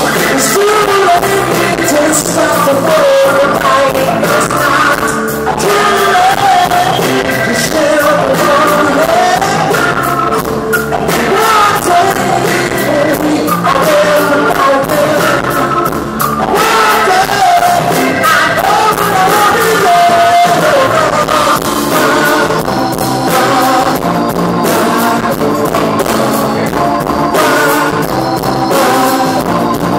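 Live rock band playing a song: a man sings the lead over electric guitar, bass guitar, drums and keyboards.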